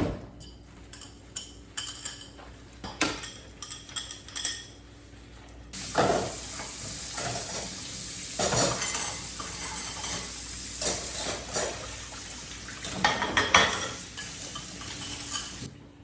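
Dishes and cutlery clinking and knocking as they are washed by hand in a sink. About six seconds in, the tap is turned on and water runs steadily over the dishes for about ten seconds, still with clinks. It cuts off just before the end.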